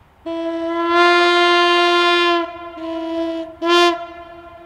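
Horn of a Class 628 diesel multiple unit sounding: one long, loud single-pitch blast of about two seconds, a weaker stretch, then a short blast near the end, a warning signal from the train.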